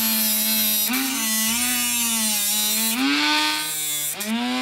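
Dremel rotary tool running with a high whine whose pitch sags as it bears into the work and recovers, dipping deepest near the end before picking up speed again.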